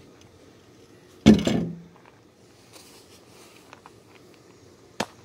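A single loud clank about a second in, with a short low ring after it, and a sharp click near the end.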